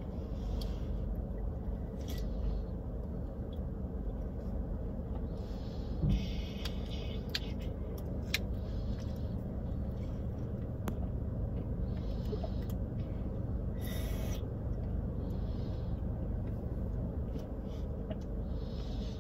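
A child sipping from a drink can, with short faint slurping hisses and small clicks every few seconds, over a steady low rumble inside a car.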